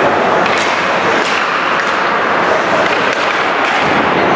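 Ice hockey game in a rink: a steady din of spectators' voices, with a few sharp knocks of sticks and puck.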